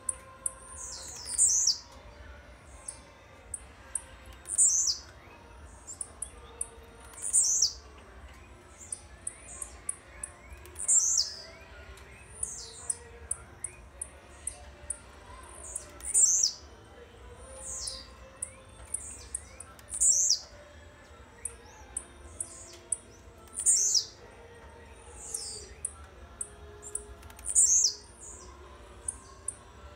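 Caged blue-black grassquit (tiziu) singing: a short, high, buzzy note that falls in pitch, repeated every three to four seconds, with quick faint high ticks in between.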